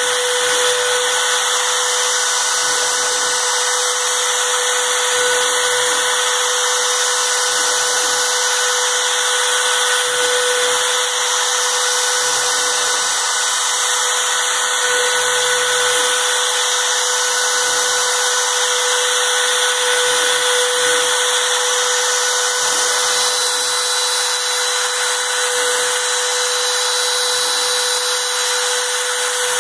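A power tool running continuously at a steady speed: an even, loud noise with a steady tone held under it, unchanging throughout.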